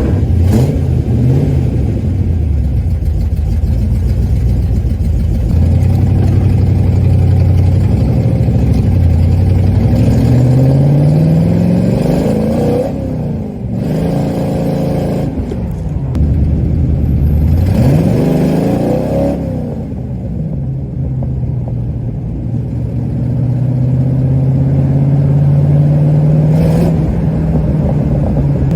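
Cobra sports car's engine running through its side-pipe exhaust while driving. The revs climb twice, about halfway through and again a few seconds later, and the pitch drops at each gear change. The engine then settles to a steady cruising pitch.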